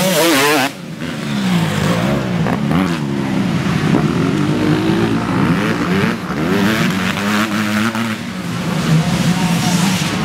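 Several 250 cc dirt-bike engines revving up and down as they race round a dirt track. One bike passing close is loud at the very start, then cuts off suddenly under a second in. After that, more distant engines keep rising and falling in pitch.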